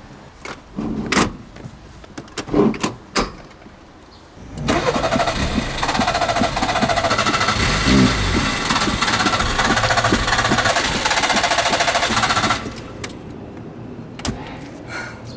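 Nissan Micra K11 cranking on its starter motor for about eight seconds without catching, then stopping suddenly. A few separate knocks and clicks come before the cranking.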